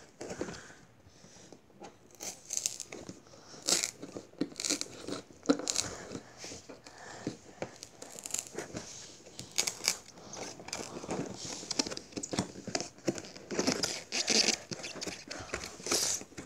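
Large cardboard toy box being pried and torn open by hand: irregular crinkling, tearing and tapping of the cardboard.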